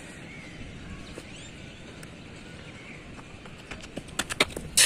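Faint open-air background, then near the end a quickening run of short taps like running footsteps as the bowler runs in. The run ends in one sharp crack of the hard cricket ball.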